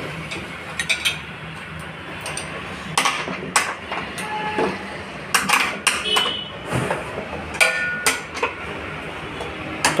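Hand tools clinking and knocking on a washing machine's steel base plate and mounting nuts as a screwdriver works the nuts loose: about a dozen scattered metallic clinks, some ringing briefly, over a steady low hum.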